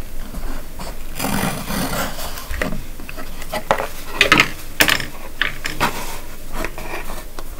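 Kitchen knife scraping and cutting into a paper bowl: a rough rasping stretch in the first couple of seconds, then several short sharp scrapes and knocks a little later.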